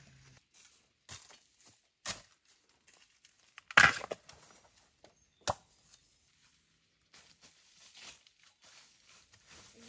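A few sharp cracks and snaps, the loudest about four seconds in, followed by softer dry rustling and tearing: bamboo shoots and their husks being broken and torn by hand.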